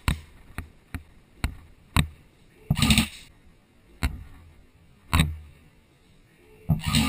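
Airsoft gun fire: about seven sharp single shots at irregular intervals, with two longer, denser bursts of noise, one about three seconds in and one near the end.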